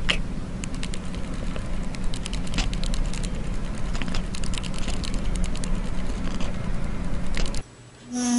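Short runs of quick, sharp clicks over a steady low rumble, picked up right at a cat's face. Near the end the sound cuts off suddenly and a grey parrot starts a call that falls in pitch.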